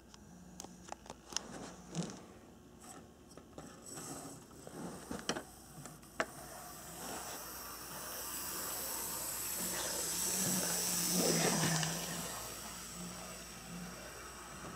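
Brass HOn3 0-4-4T Forney model locomotive running on the track, its motor and gears whirring with scattered sharp clicks in the first few seconds. The whirring swells louder about eight to twelve seconds in, then eases off.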